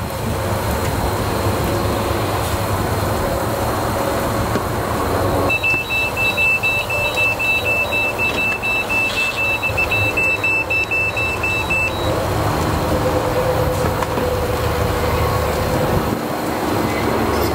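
Meat thermometer's target-temperature alarm beeping, a rapid run of high-pitched beeps about three a second, starting about five seconds in and lasting about six seconds: the probe has reached its 145 °F target. A steady low rumble runs under it throughout.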